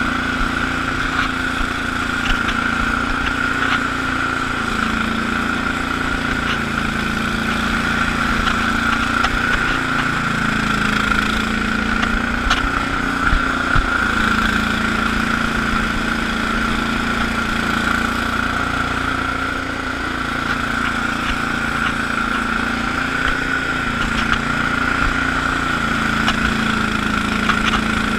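Allis-Chalmers HB-112 garden tractor's engine running steadily while it drives a 48-inch Sweepster rotary broom through snow. A steady high whine sits over the engine the whole time.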